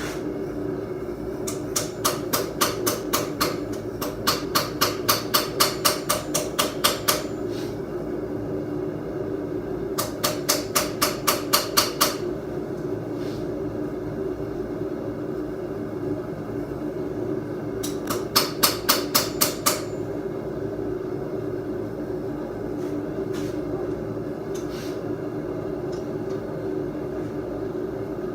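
Three runs of quick hammer blows on steel at the anvil, about four to five strikes a second, with a few single taps later. Under them runs the steady drone of the forge.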